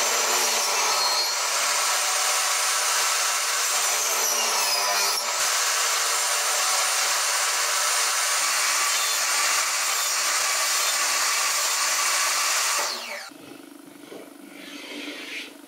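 Portable table saw running and ripping a softwood board into narrow strips, a steady loud whine with the pitch dipping slightly under the cut. About 13 seconds in it stops abruptly, leaving much quieter sounds of wood strips being handled on a bench.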